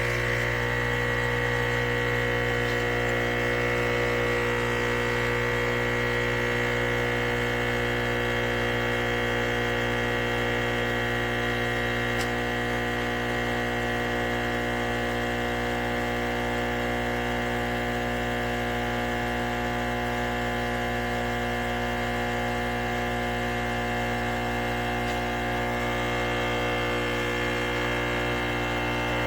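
ChefWave Káva espresso machine's pump running with a steady buzzing hum, pushing water through while the brew volume is being programmed.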